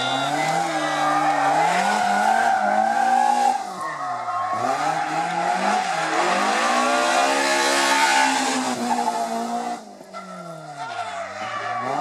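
BMW M3 E30 rally car's four-cylinder engine revving hard, its pitch climbing and falling several times as the car brakes for and powers out of tight bends, with some tyre squeal.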